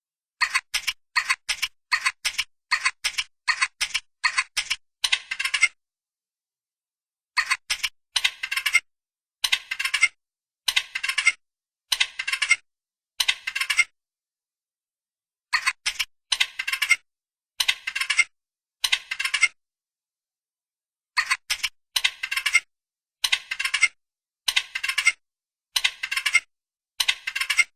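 Squirrel chattering calls: short, rapid-clicking bursts repeated one to two times a second, in four bouts broken by pauses of about two seconds.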